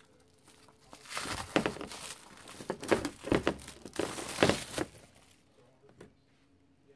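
Rustling and crinkling handling noises, a quick run of crackly scrapes from about one to five seconds in, then fading.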